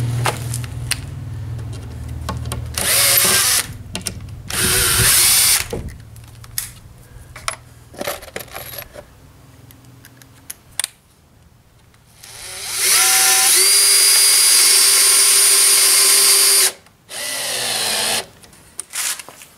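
Cordless drill-driver run in short trigger bursts, then a longer run of about four seconds whose whine rises as the motor spins up and then holds steady. Light clicks come between the runs.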